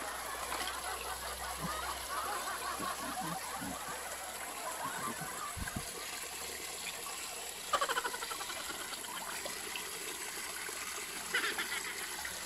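Shallow freshwater stream trickling over rocks, a steady rush of water, with two brief calls about eight and eleven seconds in.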